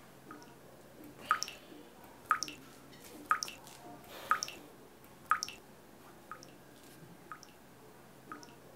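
Water dripping from a kitchen mixer tap into a stainless steel sink, one short, sharp drop about every second. After about five seconds the drops turn fainter.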